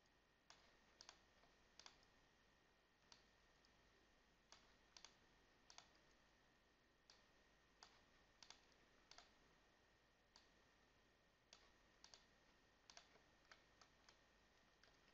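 Faint computer mouse clicks, a couple of dozen spread irregularly, many in quick pairs like double-clicks, over a faint steady high-pitched whine.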